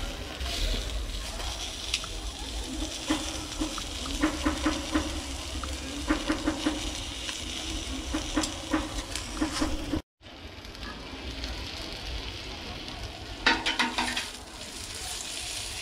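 Kebab skewers, köfte patties and döner slices sizzling over charcoal, their fat dripping onto the hot grill. Several short bouts of low pulsing with clicks rise over the sizzle, and the sound cuts out for a moment about two-thirds of the way in.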